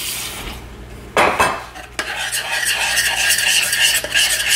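Tap water running briefly into a stainless steel pot, a knock as the pot is handled, then a wire whisk beating rapidly against the inside of the pot with quick metallic clinks, mixing PB2 powdered peanut butter with water.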